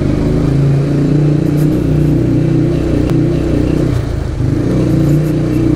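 Motorcycle engine running at low speed, heard from the rider's seat, its note wavering a little with the throttle and easing off briefly about four seconds in.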